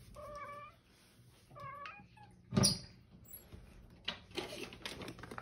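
Domestic cat giving two short meows that sound like "okay", then a single loud thump a little after halfway, then a fainter call near the end.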